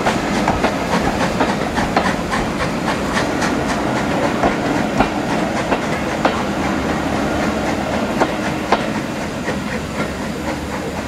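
Railway passenger coaches rolling past at close range, a steady rumble with the wheels clacking over rail joints in an irregular run of sharp clicks and knocks, easing slightly near the end.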